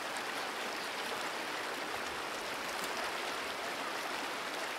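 A small mountain stream flowing: a steady rush of running water.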